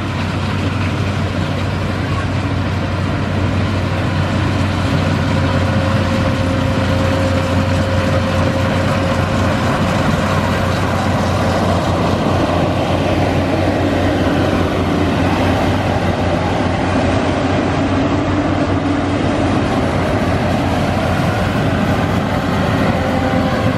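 Yanmar YH850 rice combine harvester at work cutting rice close by: a loud, steady engine and machinery drone.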